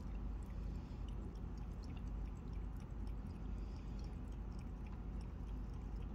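A cat lapping water from a small glass goldfish tank: soft, quick, irregular little licking clicks over a steady low hum.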